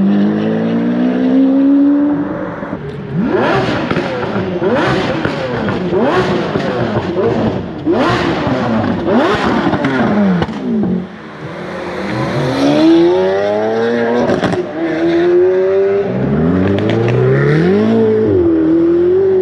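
Several supercar engines revving hard and accelerating, their pitch sweeping up and down and overlapping, with short sharp cracks in between during the busiest stretch. Near the end a single engine climbs in pitch and holds a high, steady note.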